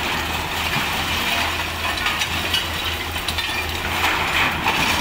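Caterpillar hydraulic excavators' diesel engines running steadily, with clinking and clattering of breaking demolition rubble, busiest about four seconds in.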